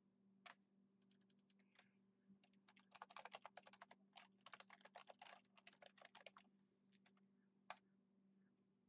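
Faint typing on a computer keyboard, a quick run of keystrokes lasting about five seconds, with a single sharp click before it and another near the end. A faint steady hum runs underneath.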